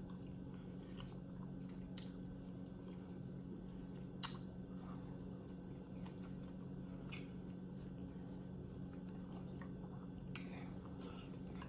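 Faint chewing and wet mouth sounds of a person eating tender oxtail meat, with a couple of soft sharp clicks, over a steady low background hum.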